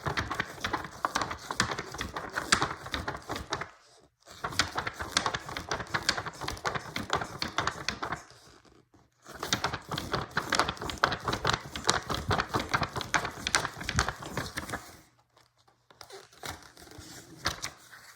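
Book pages rustling and flapping in rapid, crackling bursts as a page is flipped back and forth quickly. There are three long bursts with short breaks between them, and a fainter stretch near the end.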